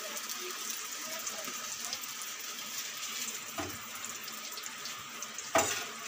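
Steady sizzle of paneer cubes frying in hot ghee in a pan. A metal spatula knocks twice against the pan in the second half, the second knock louder, as the paneer is tipped onto a steel plate.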